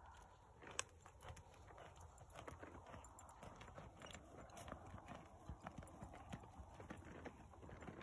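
Hoofbeats of two saddled horses walking on a soft dirt arena: a faint, uneven patter of clicks, with one sharper click about a second in.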